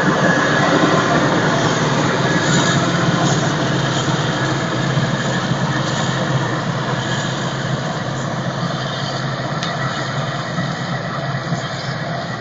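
Claas Jaguar 840 self-propelled forage harvester with a Kemper 4500 header running under load, chopping green rye and blowing it into a trailer, with the tractor pulling the trailer running alongside. A steady, loud mechanical drone that slowly grows quieter as the machines move away.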